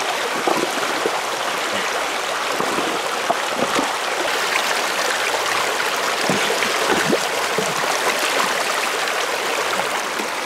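Shallow stream running steadily over rocks, with scattered small splashes and knocks as hands move through the water among the stones.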